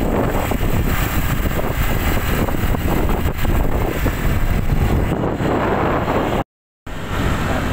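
Steady, loud wind and road rumble on a moving motorcycle, wind buffeting the phone's microphone. It cuts to complete silence for a split second about six and a half seconds in, then comes back.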